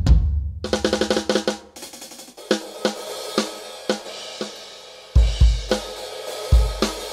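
Alesis DM8 Pro electronic drum kit played freestyle on its built-in sounds. Deep drum hits lead into a fast fill of pitched drum strokes, which ends in a cymbal wash about two seconds in. A cymbal and hi-hat pattern then keeps time at roughly two strokes a second, and the bass drum comes back in about five seconds in.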